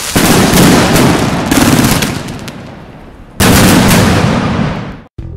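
Consumer fireworks firing in rapid succession: a dense volley of shots and crackling bursts that tails off, then a second sudden loud blast about three and a half seconds in that dies away.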